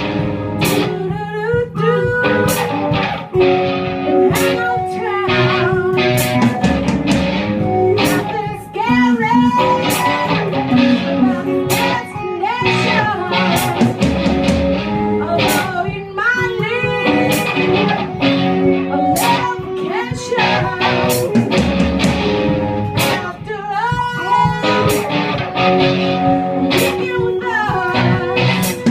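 A live band jamming: electric guitar playing with a drum kit keeping a steady beat, and a voice singing in phrases over it.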